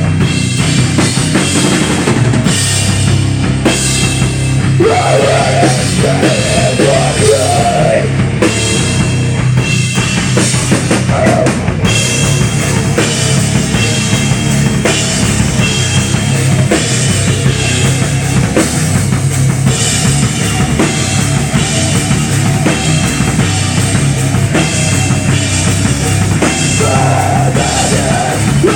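Live rock band playing loud: a drum kit with bass drum and snare under bass guitar and electric guitar, in a steady groove.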